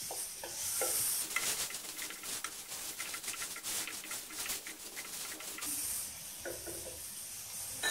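Chopped tomatoes and green peas sizzling in butter in a kadai while a wooden spatula stirs and scrapes them. There is a quick run of scraping strokes through the middle, over a steady frying hiss.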